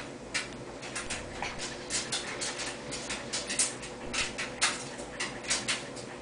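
A baby making a string of short, breathy, spluttery mouth noises and fussing sounds, several a second and uneven, while being spoon-fed applesauce.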